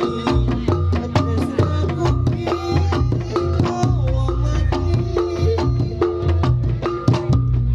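Reog Ponorogo gamelan music: drums and tuned bronze gongs played together in a quick, steady rhythm.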